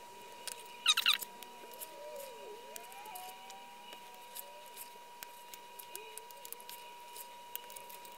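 Short squeak of laser-cut Delrin plastic parts rubbing together as a flexure finger is pressed onto the gripper, about a second in, followed by faint clicks of the plastic parts and snap rivets being handled.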